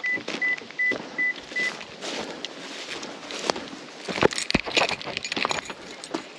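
Five short, high electronic beeps in quick, even succession over the first two seconds. Then keys jangling and gear being handled, with two sharp knocks a little after four seconds in.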